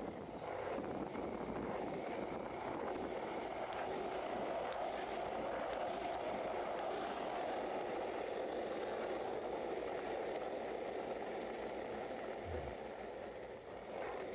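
Skateboard wheels rolling over concrete: a steady, even rolling noise.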